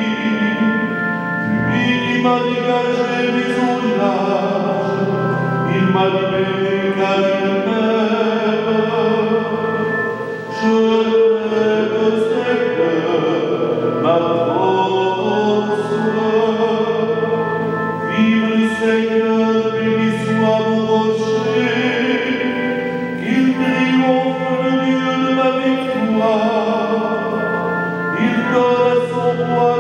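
A male cantor singing the responsorial psalm into a microphone, accompanied on a digital piano, in phrases of a few seconds over held chords.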